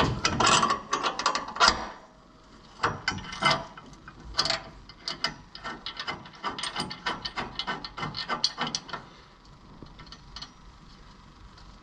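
Ratchet wrench clicking in quick strokes as the bolt and nut of a Jeep upper control arm are run into the frame bracket, after a few metal clanks in the first two seconds. The clicking stops about nine seconds in.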